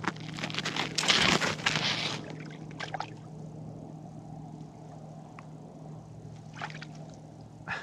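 Water splashing and sloshing in an ice-fishing hole as a hooked white sucker thrashes at the surface and a hand reaches in after it, loudest in the first two seconds, then a few small splashes. A faint steady low hum runs underneath.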